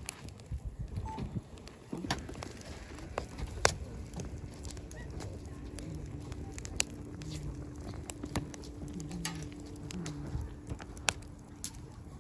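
Wood campfire crackling, with sharp pops at irregular intervals. A steady low hum joins from about four seconds in until near the end.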